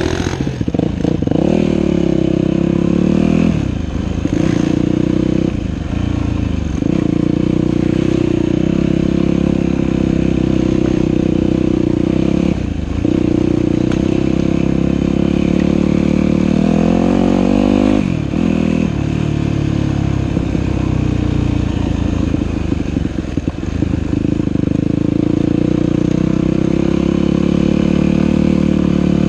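Dirt bike engine running as the bike is ridden. The engine note drops briefly and picks up again about five times.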